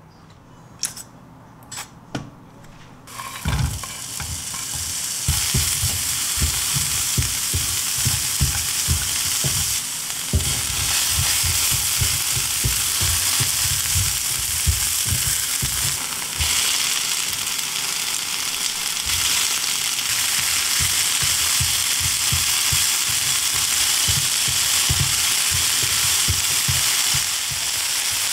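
Zucchini and onion sizzling in olive oil in a nonstick frying pan, with wooden chopsticks knocking and scraping against the pan as they stir. A few light clicks come first, and the sizzle starts about three seconds in.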